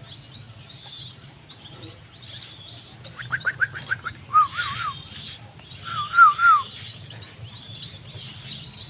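White-breasted waterhen chicks peeping: a quick run of short high peeps about three seconds in, then two groups of three wavering peeps, the second louder. A low steady hum runs underneath.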